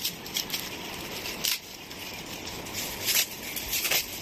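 A few sharp clinks and crinkles of small objects and packaging being handled, as gifts are unboxed, over a low steady hiss.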